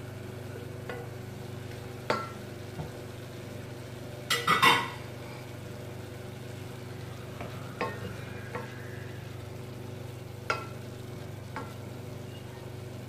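Wooden spatula stirring and knocking against a stainless steel saucepan of clams and lobster, with a louder cluster of knocks about four and a half seconds in and scattered single knocks after. Underneath, the food sizzles faintly in the pot over a steady low hum.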